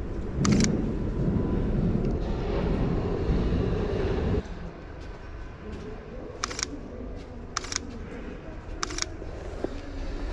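Sony Alpha 7 II camera shutter firing four times: once about half a second in, then three more spaced a second or so apart between about six and nine seconds in. For the first four seconds a loud low rumble runs underneath, then cuts off suddenly.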